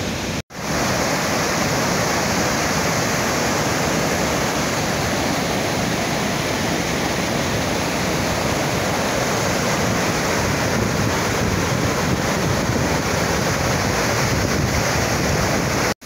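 Steady rushing of the Upper Düden waterfall and the fast white-water river below it: a dense, even wash of falling and churning water. It cuts out for a moment about half a second in, then resumes unchanged.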